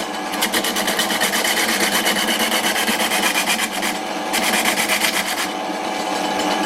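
A homemade bowl gouge cutting a spinning wood spindle on an old Karger lathe: a continuous dry scraping of the cut with a rapid, even pulsing, over the steady hum of the running lathe. The cut stops briefly about four seconds in and again near the end while the lathe keeps running.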